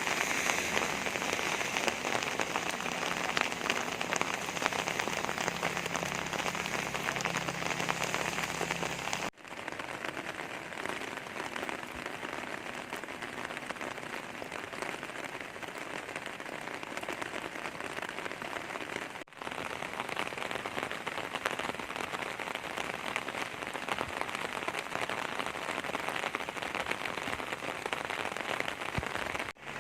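Steady heavy rain falling on hard surfaces, a dense even hiss, a little louder in the first third. It cuts out briefly twice, about 9 and 19 seconds in.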